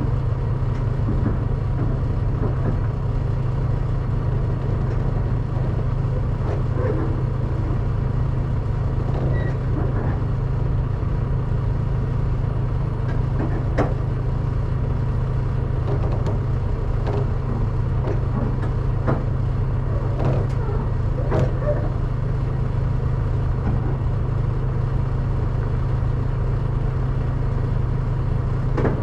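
Diesel truck engine idling: a steady low rumble, with a few faint clicks and knocks.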